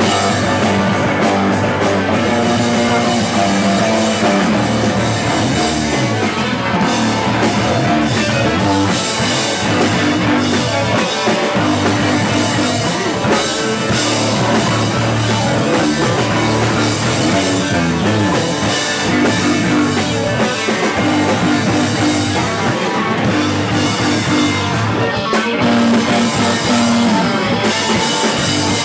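Live rock band playing, with drum kit and guitars.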